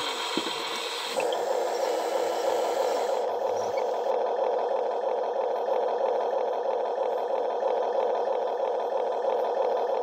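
Small electric motors and gearboxes of radio-controlled toy construction models, a Huina excavator and dump truck, whirring steadily with a fine gear rattle. The whir steps up slightly about a second in.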